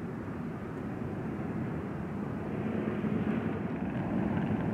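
Steady rumble of freeway traffic on nearby Interstate 10, growing a little louder in the second half.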